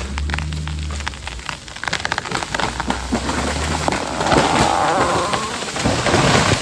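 A felled tree falling: a rapid run of wood cracking and snapping, then its crown of branches and leaves crashing to the ground for about two seconds near the end, the loudest part.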